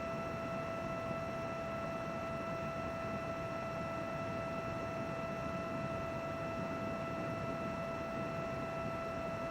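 Computer running steadily: an even whir with a constant whine over it that does not change.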